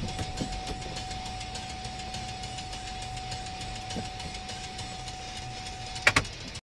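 Low engine and road rumble inside a car rolling slowly through a turn, with a thin steady high tone over it. A couple of sharp clicks come about six seconds in, and then the sound cuts off suddenly.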